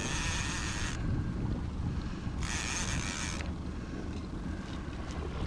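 A boat's outboard motor runs steadily at trolling speed as a low rumble, with wind buffeting the microphone. Two short bursts of hiss, each about a second long, come at the start and near the middle.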